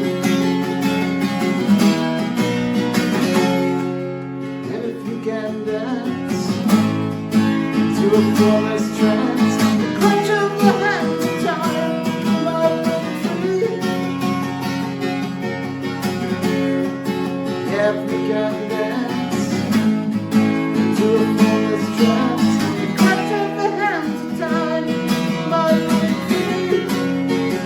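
Acoustic guitar playing an instrumental passage, picked and strummed chords with single-note melody lines.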